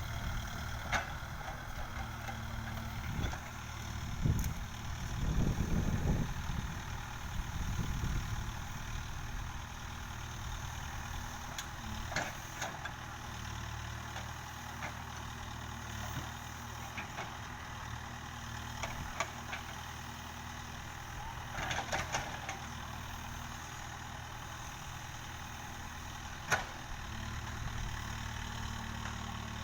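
Backhoe loader's diesel engine running steadily, swelling louder for a few seconds near the start as it works harder, with short knocks now and then.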